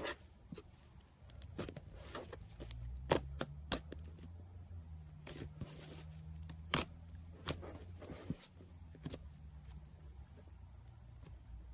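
Slime being handled, with about a dozen irregular sharp clicks and pops over a faint low hum.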